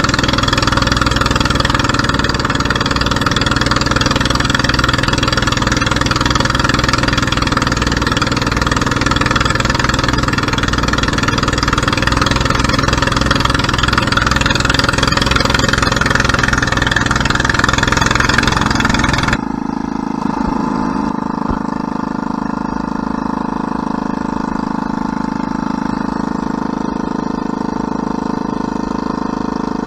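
Outrigger fishing boat's engine running steadily under way. About twenty seconds in the sound drops abruptly to a quieter, more muffled engine note that runs on steadily.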